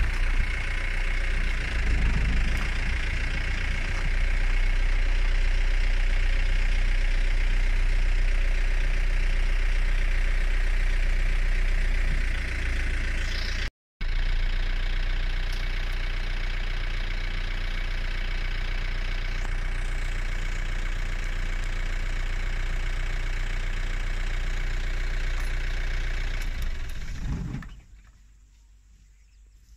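A vehicle engine idling steadily, with a steady high hiss over it. It breaks off for a moment partway through and dies away near the end.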